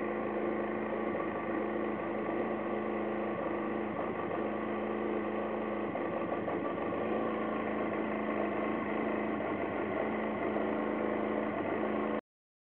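2003 Aprilia Scarabeo 50 DiTech scooter's 50 cc direct-injection two-stroke engine idling at an even, steady pitch.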